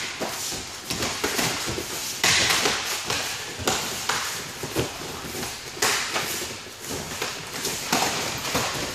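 Gloved punches landing and bare feet scuffing on a training mat during close-range sparring: a run of irregular thuds and slaps with no steady rhythm.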